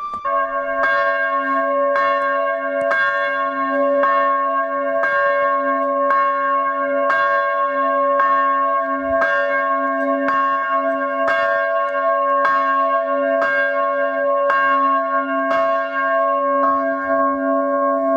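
A church bell tolling steadily, struck about once a second, each stroke ringing on into the next.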